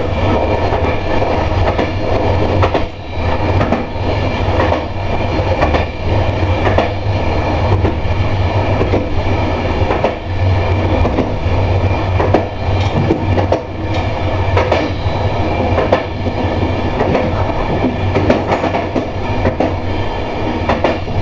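Passenger train running along the track, heard from the front of the train: a steady low rumble with frequent clicks of the wheels over the rails.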